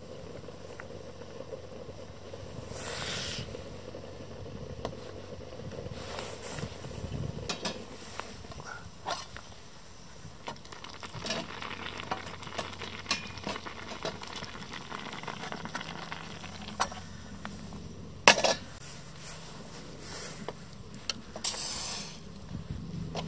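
Pasta simmering with a light sizzle in a Trangia aluminium mess tin on a camp stove, with scattered light metal clinks of cookware. One loud clank about eighteen seconds in, then metal chopsticks stirring the pasta in the tin near the end.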